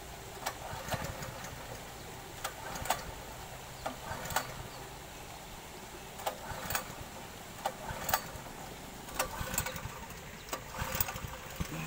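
Small petrol engine of a Koshin portable water pump idling steadily just after starting, held at low throttle, with irregular sharp clicks and knocks over the hum.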